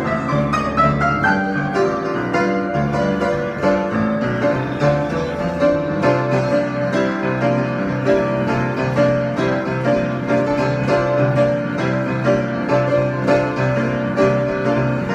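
Improvised instrumental music on a piano-like keyboard: many quick notes over held bass notes, with a low bass note sustained from about six seconds in.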